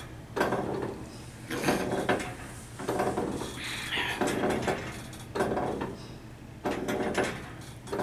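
Wooden porch swing creaking on its chains as it sways, a short pitched creak about every second and a quarter.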